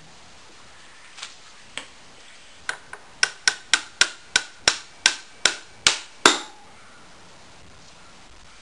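Hammer blows on a Minsk 125's rear wheel spindle to knock it out of the hub: a few light taps, then about ten sharp strikes, roughly three a second, each with a short metallic ring.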